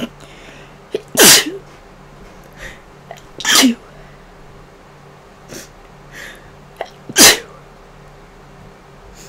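A person sneezing three times, a few seconds apart; each sneeze is a sudden loud burst after a short intake of breath. The sneezes come from a cold or flu.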